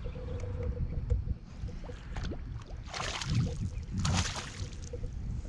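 A hooked bass thrashing and splashing at the water's surface beside a kayak, in two loud bursts about three and four seconds in, over a steady low rumble.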